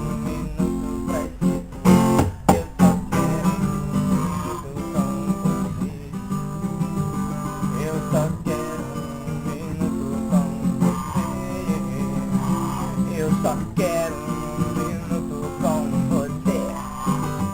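Acoustic guitar being strummed and picked, an instrumental passage of a song with no singing, with a run of hard strums about two to three seconds in.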